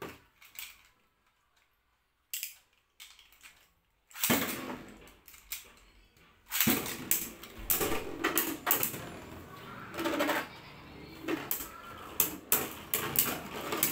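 Beyblade spinning tops launched into a plastic stadium, one about four seconds in and a second a couple of seconds later, the second from a ripcord string launcher. The two tops then spin and clash, making a quick run of sharp plastic and metal clacks and rattles.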